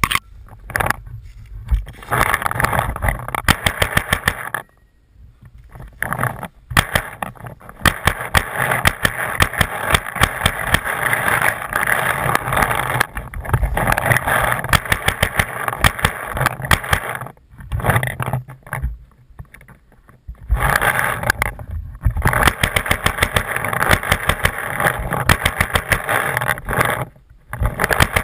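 Dense, rapid crackling and rustling of dry leaves and brush, with clattering handling noise on a head-mounted camera, as a paintball player moves through the woods. It comes in long stretches broken by short pauses, about 5 s in, for a few seconds around the middle of the second half, and just before the end.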